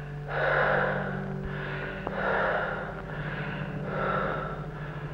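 A person breathing deeply in and out in three slow breaths, as told to during a medical examination, over the steady low hum of an old film soundtrack.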